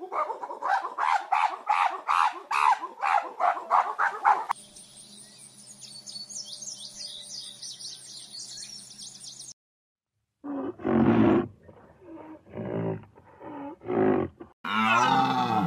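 A run of wild animal calls: a rapid, rhythmic series of pitched calls at about three a second for the first four seconds or so, then birds chirping high over a steady low hum. After a brief silence comes a set of deep, pitched calls, the loudest near the end.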